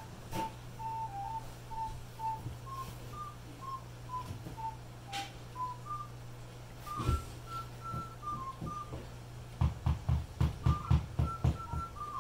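A slow, simple tune in single clear whistle-like notes, stepping up and down in pitch. About ten seconds in, a run of soft low thumps joins it, around three a second.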